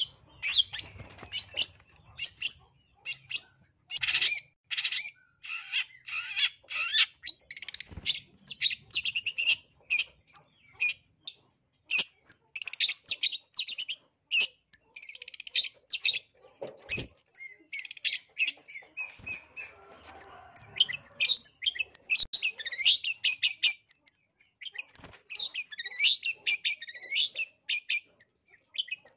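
Caged long-tailed shrike (cendet) singing its combative 'narung' song: a fast, nearly continuous string of short, high, harsh chattering notes laced with mimicked calls of other birds. One sharp knock sounds about midway.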